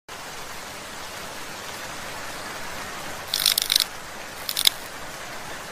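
Logo sting sound effect: a steady hiss like static or rain, with two short bursts of bright crackling about three and a half and four and a half seconds in.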